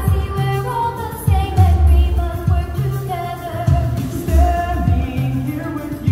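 Recorded song with a singing voice over a repeating bass line, played over loudspeakers as part of an animated clock tower show.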